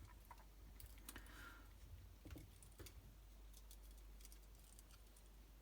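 Near silence with a few faint, scattered clicks and taps of small objects being handled.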